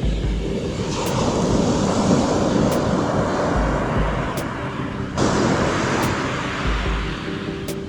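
Ocean surf washing onto the beach, with waves surging in about a second in and again about five seconds in. Wind buffets the microphone in short low rumbles.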